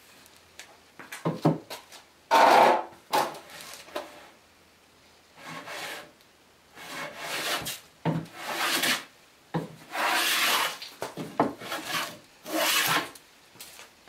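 Hand plane strokes along the edge of a wooden board. There are about nine rasping strokes, each under a second long, with short quiet pauses between them.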